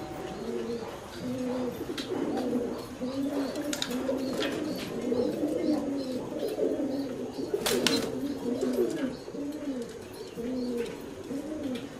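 Several domestic fancy pigeons cooing, their repeated low coos overlapping continuously, with a brief sharp noise about two-thirds of the way through.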